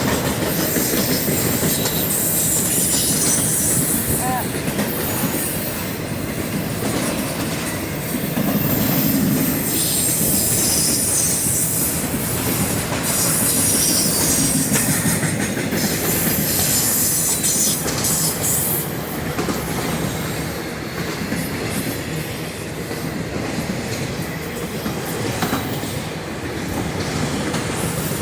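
A train's cars rolling past on the rails: a steady rumble of wheels with clickety-clack over the rail joints, and high wheel squeal that comes and goes every few seconds.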